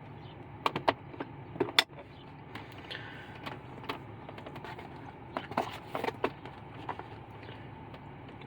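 Scattered light clicks and knocks of hand tools and packaging being handled, over a steady low background hum.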